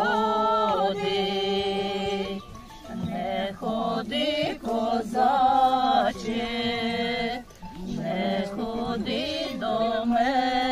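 Several women singing a Ukrainian folk song together without accompaniment, with long held notes and short breaks between phrases.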